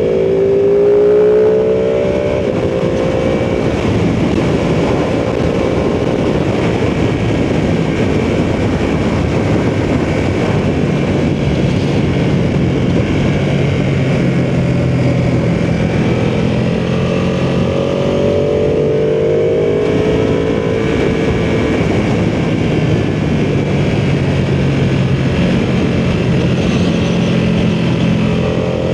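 Ducati sportbike engine heard from the saddle, pulling up through the revs in the first couple of seconds and again about two-thirds of the way through, and otherwise running at a steady cruise. A steady rush of wind and road noise runs under it.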